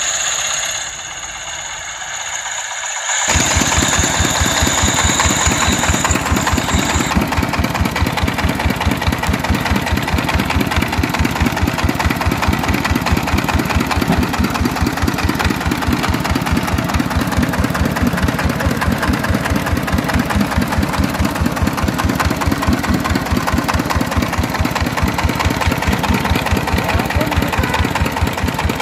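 Single-cylinder Gaofeng diesel engine of a three-wheeled công nông farm truck running steadily with an even, rapid chug, coming in abruptly about three seconds in.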